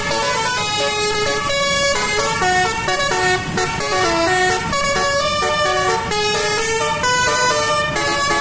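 Basuri-type bus telolet horn playing a melody: several horn tones sounding together and stepping from note to note every fraction of a second, over a low engine rumble.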